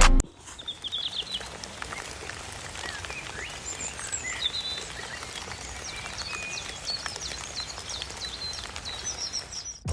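Birds chirping, many short high calls scattered throughout, over a steady outdoor hiss.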